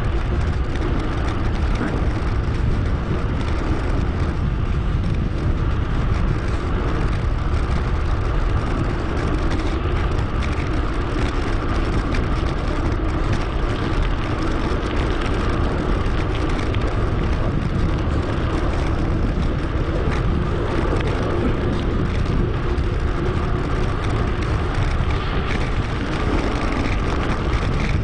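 Steady wind rush on the microphone and rolling road noise from a mountain bike being ridden at speed, a dense low rumble that stays even throughout.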